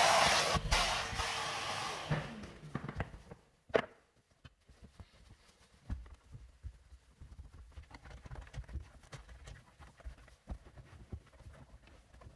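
A vacuum cleaner with a hose and brush attachment runs, then winds down and fades out over the first two to three seconds. A single knock follows just before four seconds in. After that there are only faint rustles and light taps of hand cleaning.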